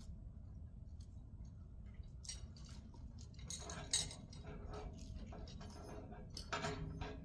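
Scattered metallic clinks and rattles of chain and steel rigging, the sharpest about four seconds in and a cluster near the end, over a faint low rumble.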